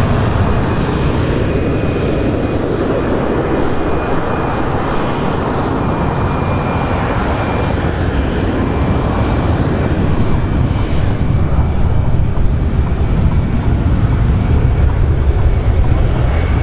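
Airbus A320-214's twin CFM56 turbofan engines at takeoff power: a steady jet noise with a high fan whine, growing a little louder in the second half as the airliner accelerates down the runway.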